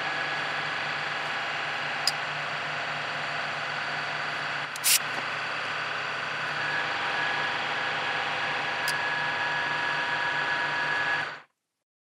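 Milling machine running steadily, with several held tones in its hum, as a tool in the spindle works a hole in an aluminium block. It gives a couple of faint ticks and a short, sharper hiss about five seconds in, and stops abruptly near the end.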